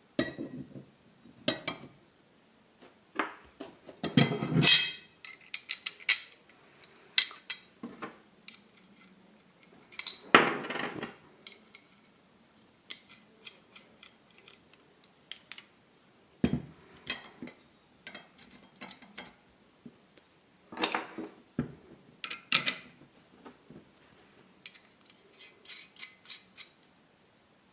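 A machined EN8 steel sprocket adapter, sprocket and bolts being handled and bolted together: scattered metal clinks and knocks, with louder ringing clanks about 4, 10, 21 and 22 seconds in.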